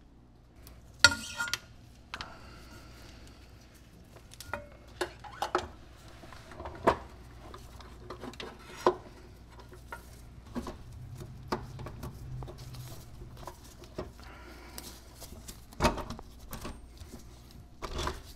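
Hand tools and metal parts clinking and knocking at an irregular pace, the loudest clank about a second in, with further sharp knocks scattered through.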